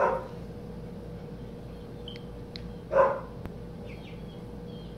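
Two short, loud barks, about three seconds apart, with faint high chirps between and after them.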